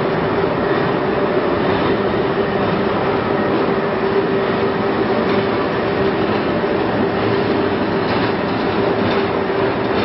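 Steady, loud running noise of a carbonization furnace plant in operation: smoke-extraction fan, diesel burner and diesel generator running together, with a constant hum over an even machine noise.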